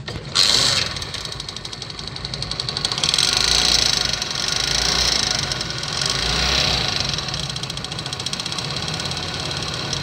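Honda CD70's small single-cylinder four-stroke engine starts about half a second in, then runs with a fast metallic rattle, a little louder in the middle. The rattle is cam chain (timing chain) noise, traced to a broken rubber on the cam chain tensioner rod.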